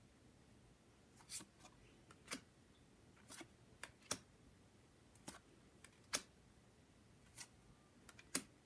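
Faint short clicks and swishes of Pokémon trading cards being handled and slid apart, about one a second.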